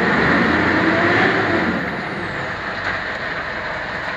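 Mitsubishi Montero engine revving up and settling back, now pulling freely after a new crankshaft sensor, under the steady hiss of heavy rain.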